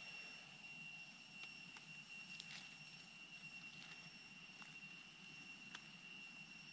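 Very faint forest ambience: a steady high-pitched drone with a few light, scattered ticks.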